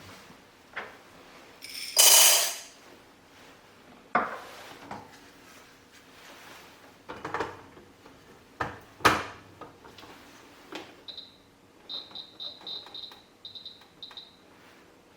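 Knocks and clatter from handling the SOUYI SY-121N coffee roaster, with a brief loud rattle about two seconds in. From about eleven seconds, a quick run of short high electronic beeps from the roaster's control panel as its settings are keyed in.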